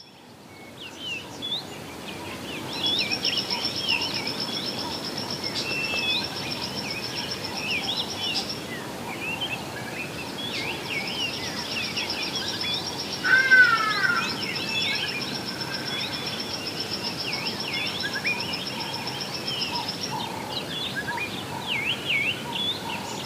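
Dense outdoor chorus of many small birds chirping and calling, over a high, rapid, steady trill that breaks off around eight seconds in, comes back, and stops again near the end. A louder, lower call stands out about halfway through.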